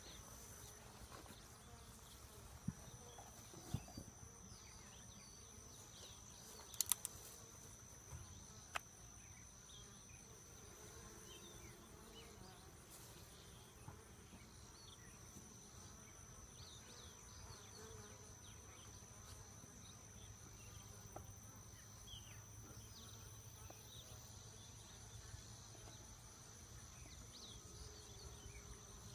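Honey bees buzzing faintly around open hives, with a handful of sharp knocks from wooden hive boxes being handled, the loudest about seven seconds in.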